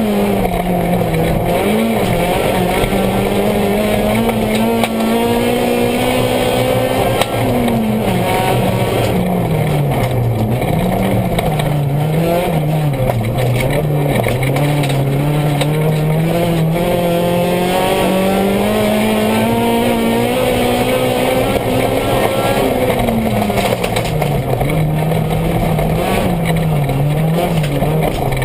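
Honda Civic rally car's B20 four-cylinder engine heard from inside the cabin, driven hard through a stage. The engine note climbs steadily under acceleration, drops sharply at upshifts (about seven seconds in and again past twenty seconds), and rises and falls quickly in between as the car brakes and accelerates through corners.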